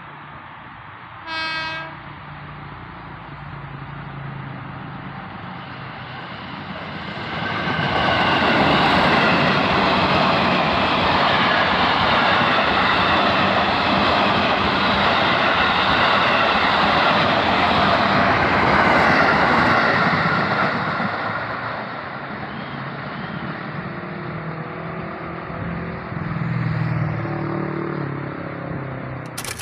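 KRL electric commuter train: a short horn blast about a second and a half in, then the train passing loudly for about fourteen seconds, with steady tones over the rush of wheels and motors, before fading away.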